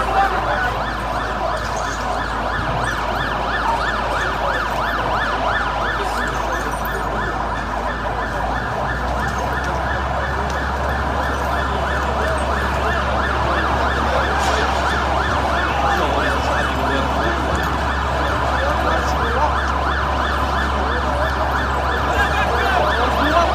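Fire engine siren in a fast yelp, its pitch rising and falling about three times a second without a break.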